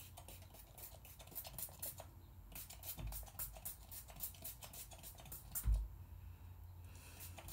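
Setting spray misted from a small pump bottle in repeated quick spritzes, faint and hissy, with two dull bumps, the louder one near the end.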